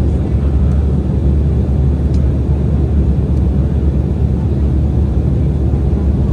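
Steady cabin noise of an Embraer E190 jet airliner in cruise: an even, low rumble of airflow and engines.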